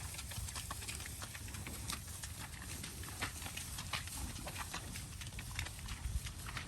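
Cattle walking through a grassy lane, their hooves making irregular clicks and knocks over a steady low rumble.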